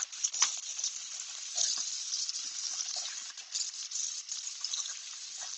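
Steak sizzling in foaming butter with rosemary and garlic in a frying pan: a steady high hiss with scattered crackles and pops, one sharper pop about half a second in.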